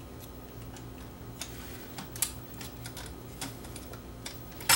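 Small irregular clicks and taps as a circuit board is pushed back into the metal chassis of a Technics RS-676 cassette deck by hand, with a sharper tap about two seconds in and a louder click near the end.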